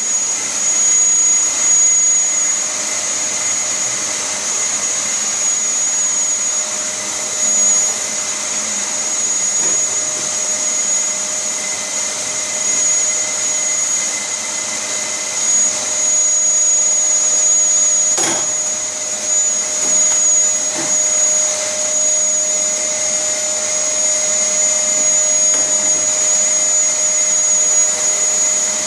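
Vacuum cleaner running steadily with a constant high whine over its rushing airflow, a brief knock about eighteen seconds in.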